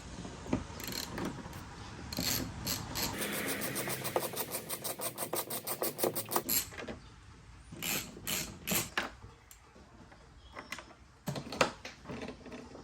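Ratchet wrench clicking as it backs out 10 mm bolts, with a fast, even run of clicks in the middle, and separate knocks and clatter of the tool and bolts before and after.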